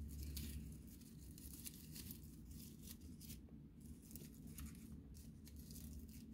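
Faint rustling and crinkling of a raffia bow being pinched and shaped with the fingers, over a low steady hum.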